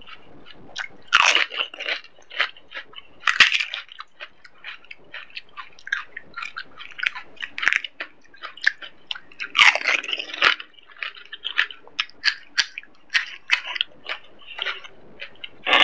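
Pani puri being eaten close to the microphone: crisp fried puri shells cracking and crunching between the teeth, with wet chewing of the spicy water-filled shells. Louder crunches come about a second in, at about three and a half seconds, and around ten seconds.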